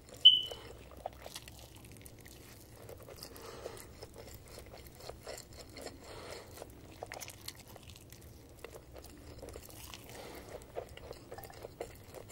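Close-miked eating sounds of a man chewing and slurping Samyang Buldak spicy instant noodles: a steady run of small wet clicks and smacks. Just after the start there is one short, sharp, high-pitched squeak, the loudest moment.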